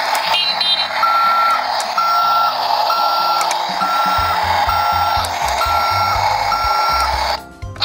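Toy garbage truck's electronic sound effect: a hissy truck-engine noise with a reversing alarm beeping seven times, about once a second, cutting off sharply near the end.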